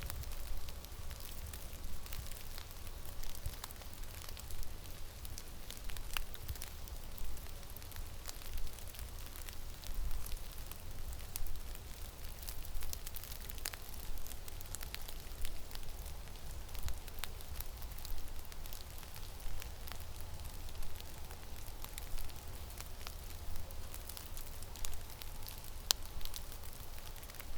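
Blizzard in a forest: wind rumbling on the microphone under a steady hiss, with many small scattered ticks.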